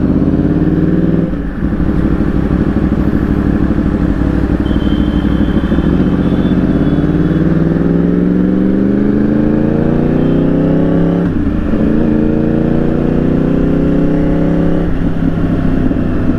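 Yamaha R1's inline-four engine pulling through the gears. The revs drop at a shift about a second in, then climb steadily for several seconds, and drop and climb again at two further shifts near the end.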